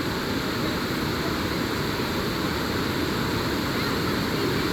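Steady rush of water pouring over a small dam spillway.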